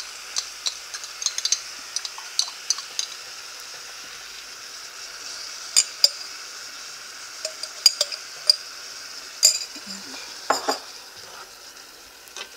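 Onion, bell pepper and tomatoes sizzling steadily in a frying pan, with a metal spoon clicking and scraping against the jar and pan at irregular moments as tomato paste is spooned in and stirred through.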